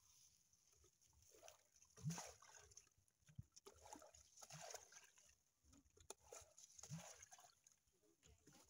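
Faint sloshing and splashing of shallow muddy water, coming in several short bursts, as a plastic bucket scoops water from a ditch.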